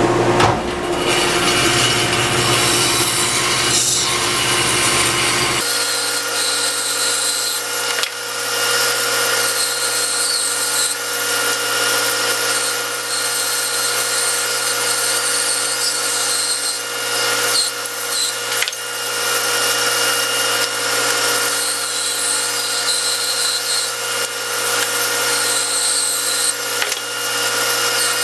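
Vertical band saw running steadily, its blade cutting through blocks of wood. The deep part of the hum drops away about six seconds in.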